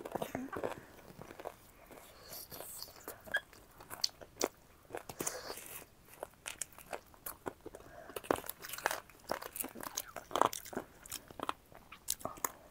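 A person chewing crunchy food close to the microphone: irregular crisp crunches and bites, with small wet chewing sounds between them.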